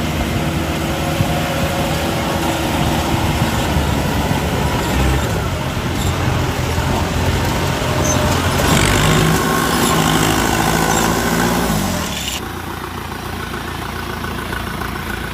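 Rice combine harvester running with a steady engine drone and machinery noise. About twelve seconds in, the sound drops and turns duller.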